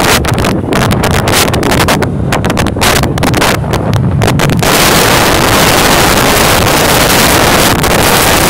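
Jet blast from a McDonnell Douglas MD-80's Pratt & Whitney JT8D engines at takeoff thrust, heard from behind the aircraft: a loud roar mixed with heavy wind buffeting on the microphone. It is choppy at first and becomes a steady, unbroken roar about five seconds in.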